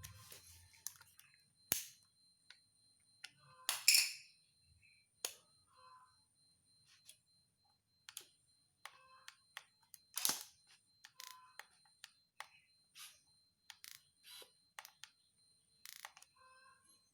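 Camera and lens being handled: a string of irregular sharp clicks and taps, some with brief chirping tones, over a faint steady high whine. The second lens is being fitted and tried, and its autofocus does not work.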